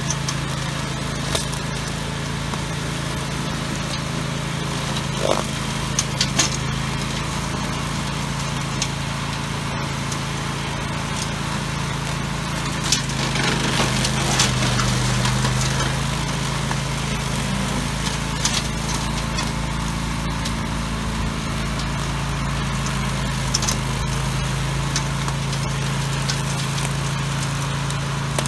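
Grillo Climber 9.22 ride-on brush mower running steadily at working speed while cutting tall grass and weeds, with scattered sharp clicks and snaps of stems and debris struck by the cutter. Around the middle the cutting gets louder for about three seconds.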